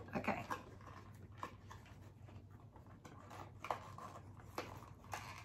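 Faint short whimpers from a dog, a few times, over a low steady room hum.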